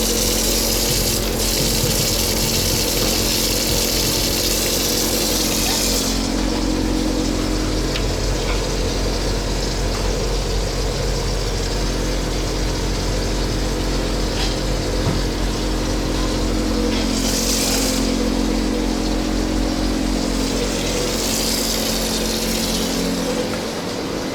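Tap water running into a sink over a steady mechanical hum. The hiss of the water stops about six seconds in and comes back briefly twice later, while the hum carries on.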